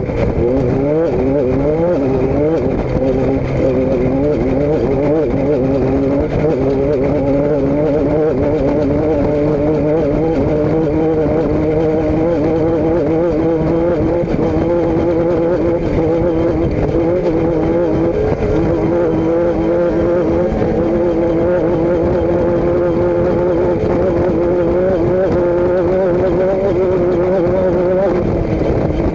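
A motor vehicle's engine running under way. Its note climbs in several short rises over the first few seconds, as when accelerating through the gears, then holds fairly steady as at a cruising speed.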